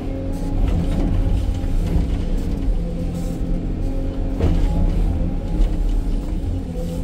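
Hydraulic excavator's diesel engine running under digging load, heard inside the operator's cab, with a short knock about four and a half seconds in.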